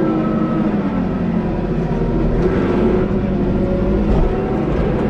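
Tractor engine running steadily while driving, its note dipping slightly about a second in.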